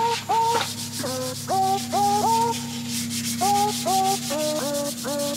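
Sandpaper rubbed by hand over painted sheet metal in a car's engine bay: quick back-and-forth scratchy strokes, prepping the surface for paint.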